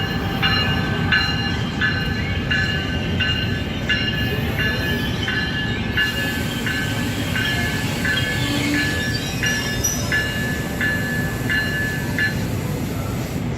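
NJ Transit train led by an ALP-46A electric locomotive at a station platform: a bell dings about one and a half times a second over the train's steady low rumble, the dinging stopping about a second before the end.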